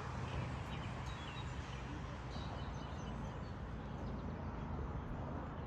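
Outdoor ambience: a steady low rumble of wind on the microphone, with a few faint bird chirps about two to three seconds in.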